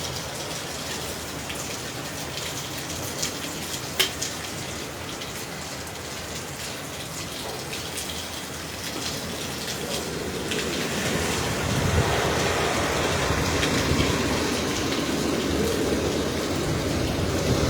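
Hurricane rain pouring down in strong wind, with a sharp tick about four seconds in; the downpour grows louder and rumbles more from about ten seconds in.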